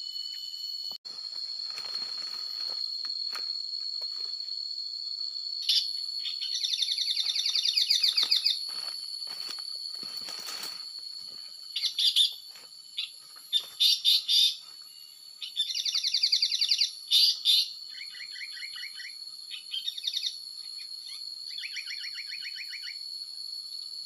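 Asian paradise flycatcher calls played from an MP3 lure to draw the bird to bird-lime sticks: repeated bursts of harsh, fast-pulsed rasping phrases starting about six seconds in. Behind them, insects keep up a steady high drone.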